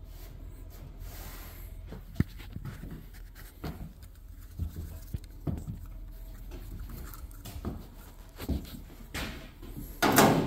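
A steady low hum under scattered soft knocks and handling sounds, with one sharp click about two seconds in and a loud close rustle near the end.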